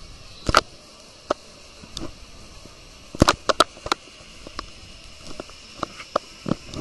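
Scattered sharp clicks and knocks, with a quick cluster of them about three seconds in, over a faint steady hiss.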